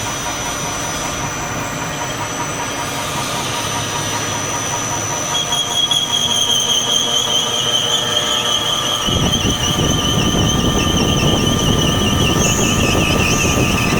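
ZK5232X12 multi-spindle drilling machine running and drilling. About five seconds in, a high wavering squeal sets in and drifts slowly lower, and a few seconds later a rougher, louder low noise joins it as the cut goes on.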